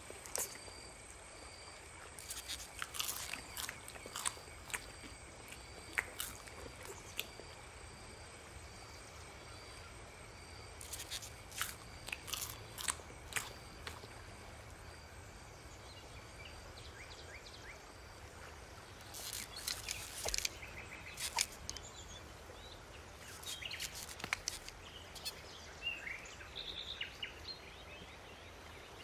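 Faint dusk nature ambience: a steady high trill with an even pulse, scattered crunchy clicks, and bird chirps in the later part.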